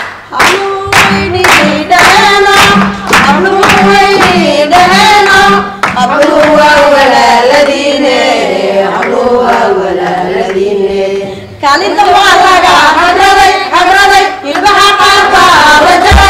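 A woman singing into a microphone in long, held phrases, with hands clapping along in a steady rhythm. There is a short break in the song about two-thirds of the way through.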